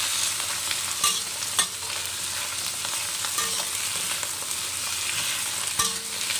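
Shiitake and wood ear mushrooms sizzling in hot oil in a stainless steel wok while a metal spatula stirs and scrapes them. A few sharp clinks of the spatula against the wok ring out, about a second in, at a second and a half and near the end.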